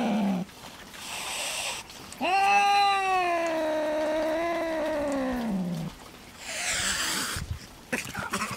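Female cat yowling while being mated: a falling yowl at the start, then one long yowl that rises and then slowly falls in pitch. Short hisses come between the yowls, and near the end there is rustling in dry grass as the cats break apart.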